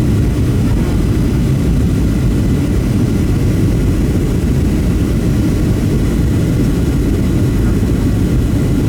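Steady low cabin noise of a Boeing 737-700 airliner, its CFM56-7B turbofans and the airflow heard from inside the passenger cabin, unchanging in level.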